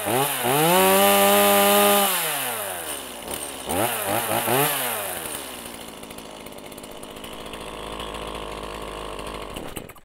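Two-stroke chainsaw engine revving: two quick blips, then a held high rev for about a second that falls away. Two more quick blips come about four seconds in, then it settles to a steady idle and cuts off at the very end.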